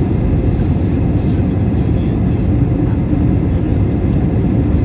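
Steady low rumble of an Airbus A321's cabin in the climb after takeoff: its CFM56 engines at climb power and the airflow over the fuselage, heard from a window seat beside the wing.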